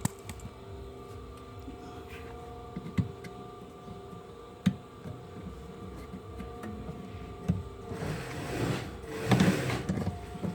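Hands working the rubber drive belt off a washing machine's pulleys: a few sharp knocks and clicks, then a longer stretch of scraping and rubbing near the end as the belt comes free, over a steady hum.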